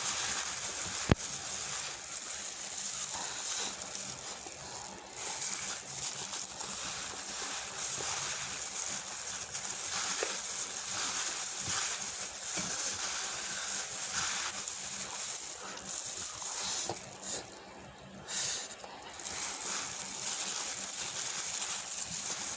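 Close-miked eating sounds: wet chewing and slurping with small clicks and sloshes over a steady hiss, and one sharp click about a second in.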